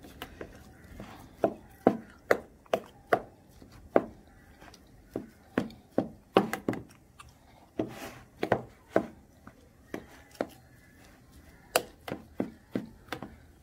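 Metal spoon knocking and scraping against a bowl while stirring ground egusi melon seeds with a raw egg: a run of irregular sharp taps.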